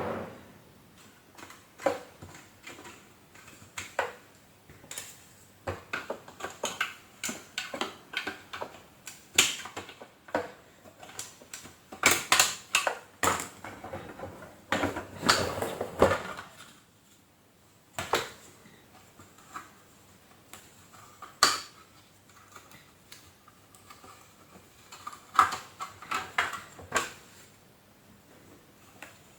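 Irregular clicks, knocks and short scrapes of plastic housing parts and tools being handled while a canister vacuum cleaner is taken apart, busiest in the middle with a longer scraping rattle.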